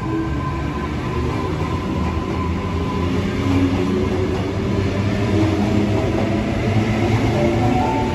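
Sydney Trains Tangara electric train (sets T95 and T52 coupled) pulling out past the platform: a steady rumble of wheels on rail, with a motor whine that rises in pitch as the train picks up speed.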